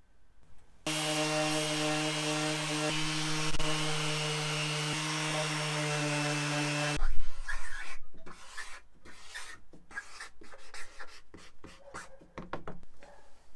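Makita cordless random orbital sander with a 600-grit disc running steadily with a low hum and hiss, switching off suddenly about seven seconds in. It is followed by a run of short scratches and taps from a marker writing on card.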